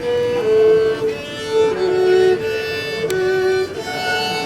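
A violin playing a slow melody of held notes that step up and down.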